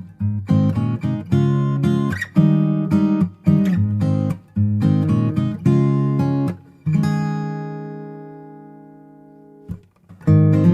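Background music: acoustic guitar strumming chords, with one chord left ringing and dying away for about three seconds before the strumming starts again.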